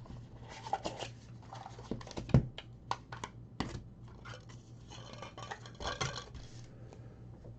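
Football trading cards and their packs being handled: scattered light clicks and taps, with a stretch of rustling about five seconds in.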